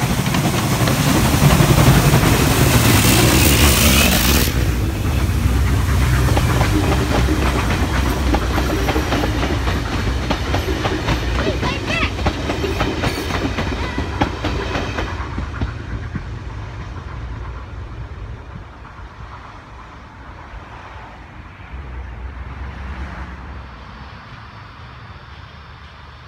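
Steam locomotive 2705 passing close by with a train of wooden-bodied carriages. Its steam exhaust and hiss are loudest in the first few seconds, then the carriage wheels click steadily over the rail joints, and the sound fades as the train draws away.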